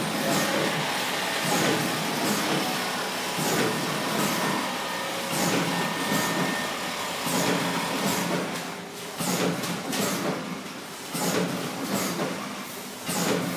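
420-model automatic powder packing machine running, with a steady mechanical hum and a repeating cycle about every two seconds. Each cycle carries a pair of sharp clacks from the bag-sealing jaws, matching the machine's set pace of 30 bags a minute.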